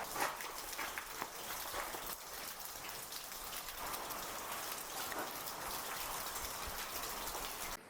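Spring water dripping and trickling down a rock wall: a steady spatter of many small drops.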